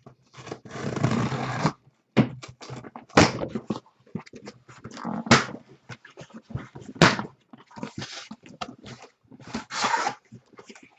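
Handling of a cardboard case of trading-card boxes: irregular scraping and rustling with a few sharp knocks, and longer stretches of rough noise near the start and near the end.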